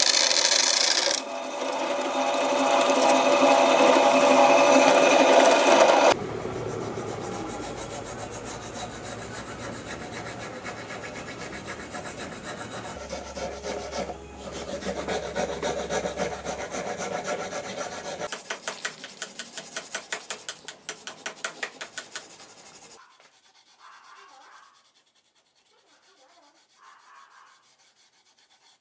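A drill press bores through a wooden sword grip for about six seconds. Then a hand file rasps the carved wooden pommel in quick, even strokes. Near the end there is only faint sandpaper rubbing on the wood.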